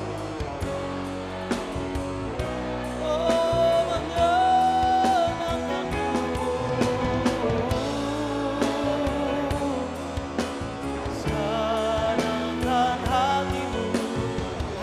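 A live church worship band plays a praise song. A voice or lead line carries a wavering melody over sustained chords and drum strokes, rising about three seconds in and again near the end.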